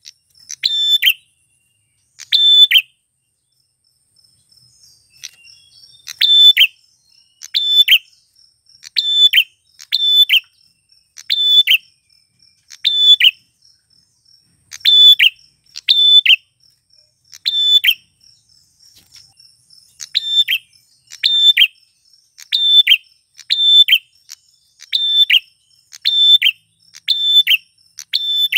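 Male prenjak (prinia) repeating a sharp, loud call about once a second, nearly twenty times, with one pause of several seconds near the start. A faint, steady high-pitched hum runs underneath.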